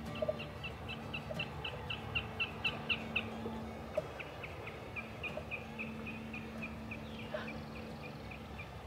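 Wilson's snipe calling: a long, even series of short, sharp notes at about four a second, loudest a couple of seconds in and then fading somewhat.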